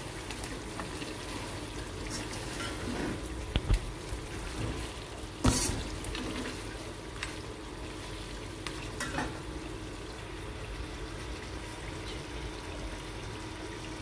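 Mutton and softened tomatoes sizzling in oil in a stainless-steel karahi while a steel slotted spoon stirs, with a few scrapes and knocks of the spoon against the pan, the loudest about five and a half seconds in.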